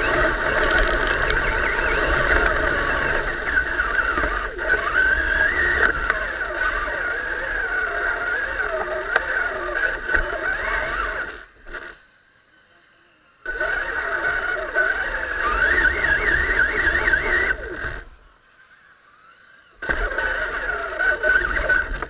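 Electric RC truck (Traxxas Summit) drivetrain whining as it drives, the motor and gear whine rising and falling in pitch with the throttle, heard from a camera mounted on the truck's own bumper. Twice it cuts out for a second or two, about halfway through and again near the end, as the truck stops.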